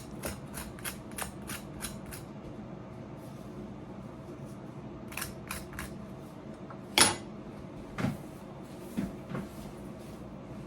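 Kitchen utensils being handled: a quick run of sharp clicks for the first couple of seconds, then a few scattered knocks, the loudest about seven seconds in. A steady low hum runs underneath.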